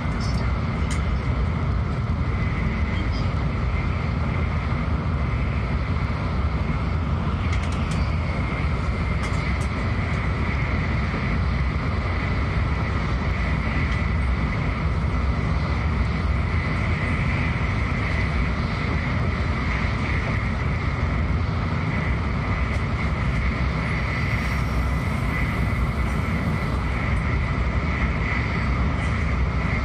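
Shinkansen Nozomi at speed, heard from inside the carriage: a steady low rumble of wheels on track with a constant hiss of air and running noise.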